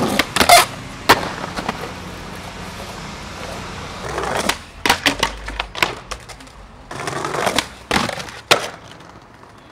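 Skateboard wheels rolling over pavement and brick, broken by sharp clacks and scrapes as the board strikes and grinds ledges. There are a couple of hits near the start, a cluster in the middle and two more near the end.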